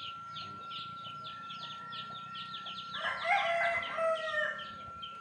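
A rooster crows once, starting about three seconds in. Behind it, a high chirping repeats evenly at about four strokes a second.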